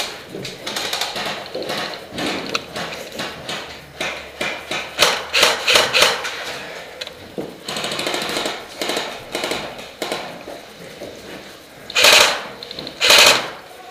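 Irregular knocking and clattering, with two loud, short bangs about a second apart near the end.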